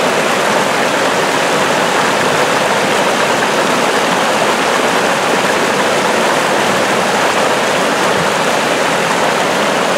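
Waterfall and rushing rapids: a loud, steady rush of water over rocks.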